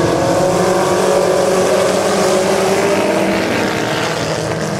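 A pack of Chevette dirt-track race cars' four-cylinder engines running hard together, several engine notes overlapping in a steady drone that eases slightly near the end.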